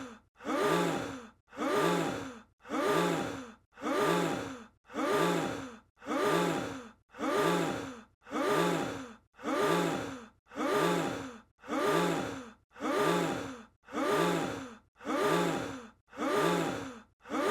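A short breathy vocal sound effect played over and over in a loop, identical each time, about three every two seconds, each one starting sharply and fading out before the next.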